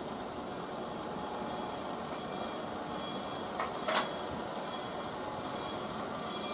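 Steady hum and hiss of a Tobu electric commuter train, the 8000-series set 8160F coupled to an 800-series set, with faint high tones. Two sharp clicks come about three and a half and four seconds in, the second the louder.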